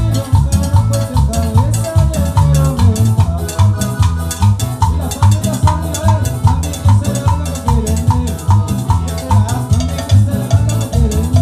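Live cumbia band playing, with electric bass, timbales and cymbal keeping a steady, fast beat and short repeated high notes over it.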